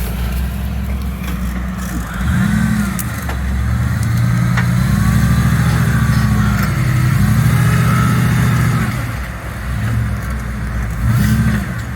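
Engine of an off-road rig running low and steady, then revving: a short blip about two seconds in, a longer stretch of revving through the middle, and another short blip near the end.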